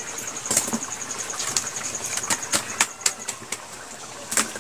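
Fish frying in hot oil in a pan over a wood-fired clay stove, spitting with irregular sharp pops and crackles, with a steady high insect chirping behind.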